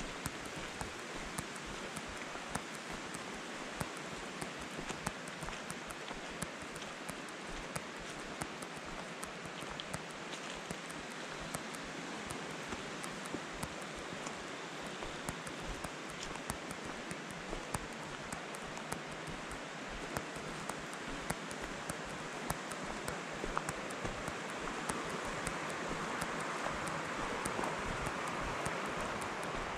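Steady rushing water of a mountain creek, swelling somewhat over the last few seconds, with many small ticks scattered through it.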